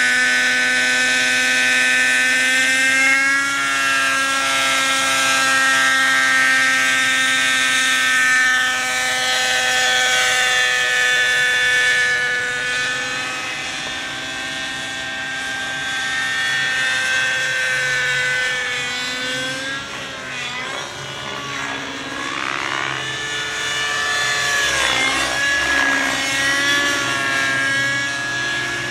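Thunder Tiger Raptor 50 Titan RC helicopter flying, its nitro glow engine and rotors giving a steady high-pitched whine. The pitch holds for the first half, then dips and climbs again around twenty and twenty-five seconds in as the helicopter manoeuvres.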